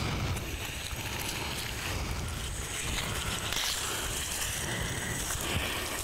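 Rainforest ambience: a steady hiss with a gusty low rumble on the microphone, as palm fronds are pushed aside and rustled.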